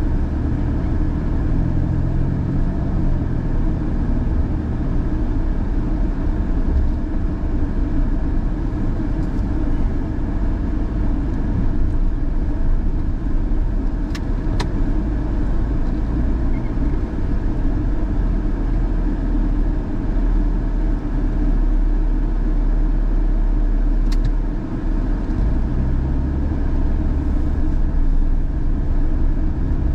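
A car driving: steady engine and road rumble, with a few sharp clicks about halfway through and once more later.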